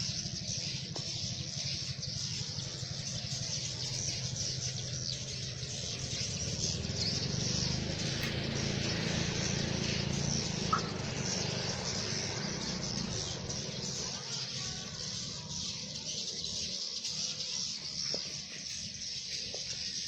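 Many swiftlets calling at once, a dense high twittering chatter, over a steady low hum.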